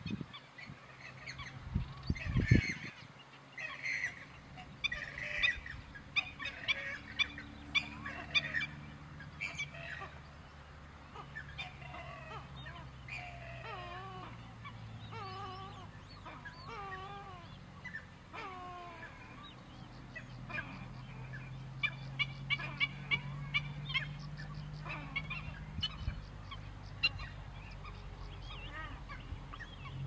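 Wetland birds calling: many short, repeated calls, with a stretch of wavering calls that rise and fall in the middle. A steady low hum lies underneath, with a couple of low thumps in the first few seconds.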